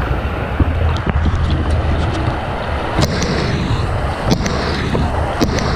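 Wind buffeting an action camera's microphone over rushing white water, with several sharp knocks as a hand handles the camera housing.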